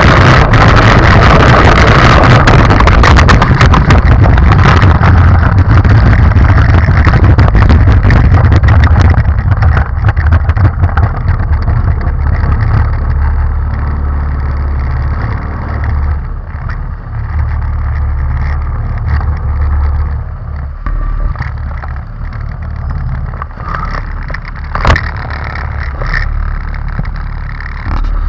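Go-kart engine running as the kart drives over bumpy grass, with the frame rattling. Loudest for the first nine seconds or so, then quieter, with a sharp knock near the end.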